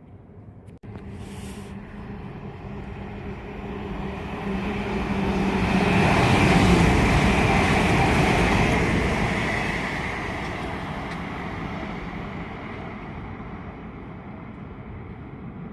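A train passing on the main line: the rush of its wheels and running gear swells to a peak about six to eight seconds in, then fades away.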